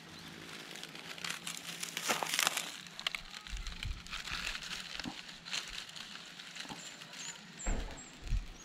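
Dry grass tinder rustling and crinkling as it is handled and pressed onto glowing embers, loudest around two seconds in, with a couple of dull bumps near the end.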